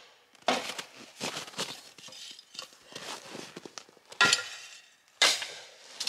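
Cast iron pipe being struck and shattering, several sharp strikes, the loudest two in the last two seconds.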